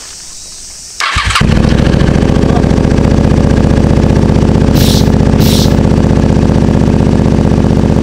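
Honda VTR250's V-twin started up: a brief burst of the starter about a second in, then the engine catches and idles loudly and steadily through a cheap generic slip-on muffler with its inner silencer baffle taken out. Two short hisses come near the middle.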